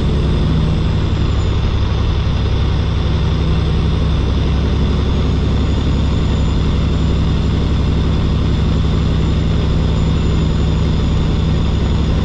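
Semi-truck's diesel engine running steadily at highway cruising speed: a constant low drone that holds the same pitch throughout.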